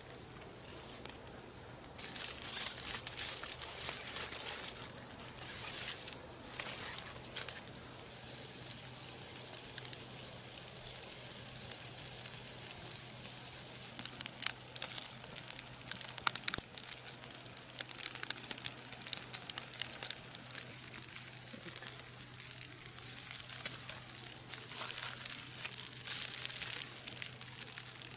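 Irregular rustling and crinkling in uneven bursts, with a few sharp clicks.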